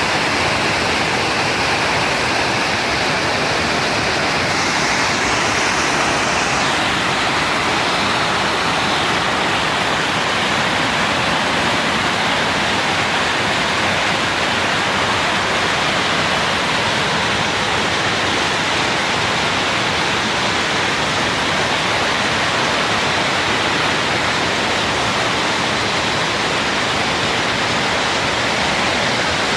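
Waterfall's falling water: a loud, steady rush that holds even throughout.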